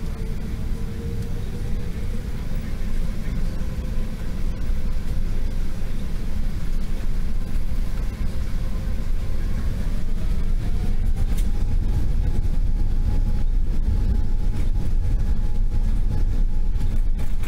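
The four Engine Alliance GP7200 turbofans of an Airbus A380, heard inside the cabin: a steady low rumble with a faint whine. About ten seconds in, the whine rises in pitch and the sound grows louder as the engines spool up.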